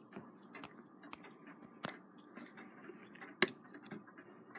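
A few faint, scattered metallic clicks and taps from the metal frame and gear parts of an Edison Model D phonograph motor being handled, with one sharper click about three and a half seconds in.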